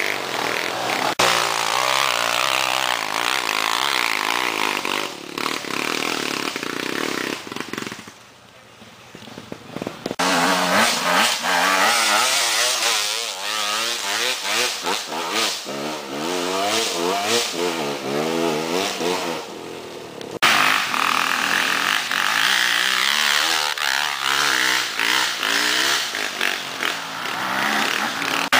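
Dirt bike engines revving hard as the bikes climb a steep dirt trail, the pitch rising and falling with the throttle. The sound drops much quieter for about two seconds around eight seconds in and changes abruptly a few times.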